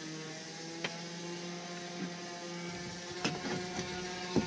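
Light metallic clicks and knocks as a Barient 28 sailboat winch is dismantled by hand and its drum worked loose from the spindle. About five clicks come at irregular intervals, the loudest near the end, over a steady low hum.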